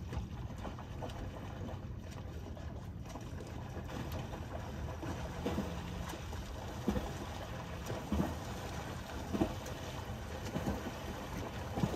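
Sea water sloshing and splashing close to the microphone, over a steady rumble of wind noise, with a sharp splash about every second and a quarter in the second half.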